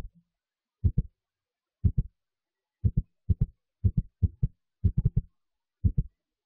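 Deep, short thumps, mostly in quick pairs, repeating about once a second with dead silence between, a lub-dub heartbeat-like beat.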